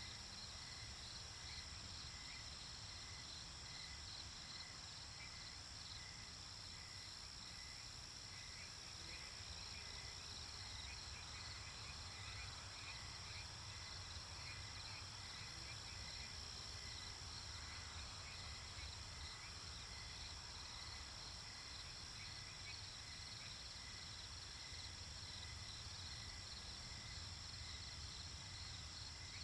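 Crickets chirping in a steady, fast-pulsing chorus, with a higher row of repeated chirps, over a faint, steady low rumble.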